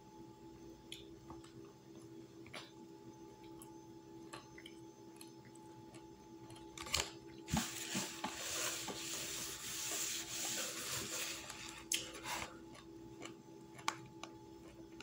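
A napkin rubbed briskly over the hands for about four seconds in the middle, a loud even rustling hiss. Before and after it, a fork clicks a few times against a plastic food container, over a faint steady hum.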